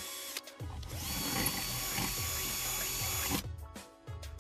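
Power drill boring through a thin stainless steel plate, with the bit grinding steadily. There is a short break about half a second in, and the drilling stops about three and a half seconds in, leaving a few light clicks.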